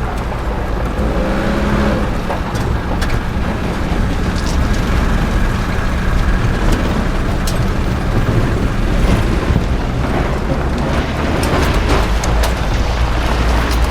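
Dump truck engine running steadily with a low rumble, and a few light clicks over it.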